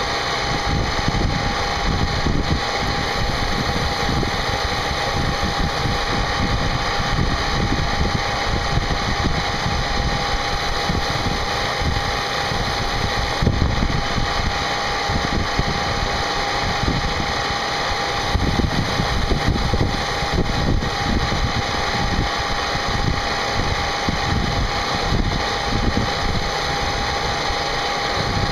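CNC machine running a cutting job: the spindle gives a steady high tone over a rough, continuous machining noise.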